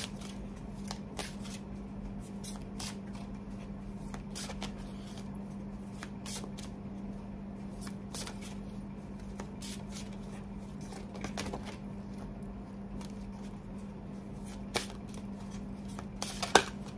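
An oracle card deck being shuffled by hand: a long run of soft flicking and riffling card sounds, with a sharper snap of cards about half a second before the end. A steady low hum lies underneath.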